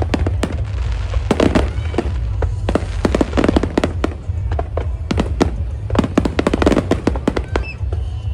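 Fireworks display bursting in rapid, irregular succession, several sharp bangs a second, over a steady low rumble.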